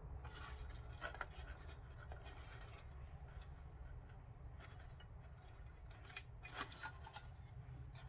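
Faint rustling, scraping and light clicks of small paper die-cut pieces being handled and sorted through in a metal tin, over a low steady hum.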